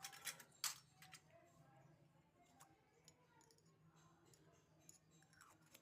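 Small plastic toy kitchen pieces being handled: a quick run of sharp clicks and taps in the first second, then a few sparse, fainter ticks over a quiet background.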